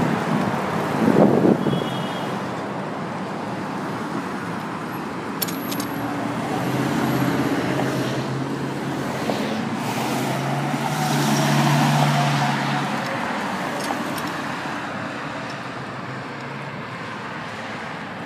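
Road traffic noise from cars passing and idling in slow, backed-up traffic. A vehicle engine's low hum swells to its loudest about twelve seconds in, then fades.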